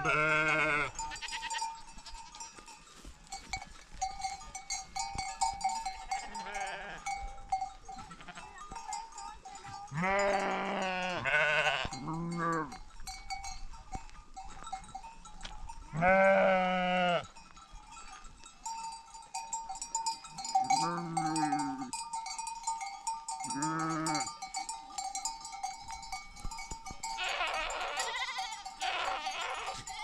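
Sheep and goats bleating, several separate calls spread apart, over the faint steady tinkle of bells on the flock.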